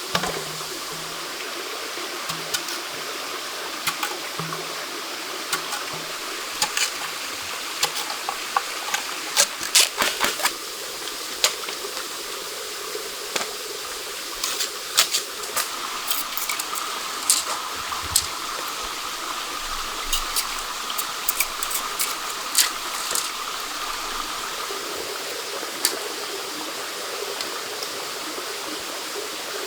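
Steady rushing of a stream, with scattered sharp clicks and snaps over it, clustered around a third and a half of the way through.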